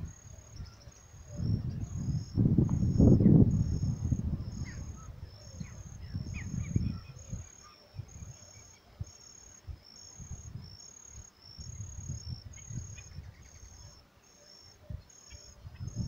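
An insect chirping in an even rhythm, about one high pulse a second, over a low rumbling noise that is heaviest a few seconds in. A few faint, short bird notes come through.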